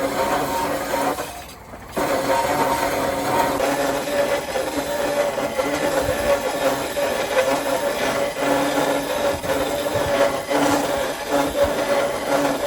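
A power tool's motor running steadily, with a rough scraping, grinding noise of work on the piece. It drops off briefly about a second in, then starts up again.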